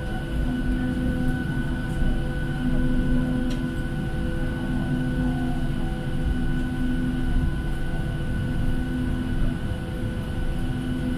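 Cabin noise inside a Boeing 737-700 rolling slowly on the ground, with a low rumble under a steady high engine whine and a low hum that drops in and out.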